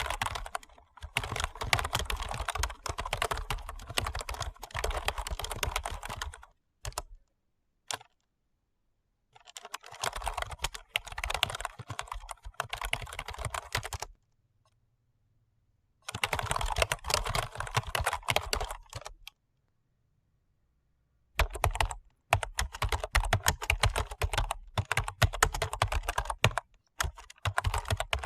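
Computer keyboard being typed on rapidly: fast runs of key clicks in four separate stretches of several seconds each, divided by short silences, with a couple of single keystrokes after the first run.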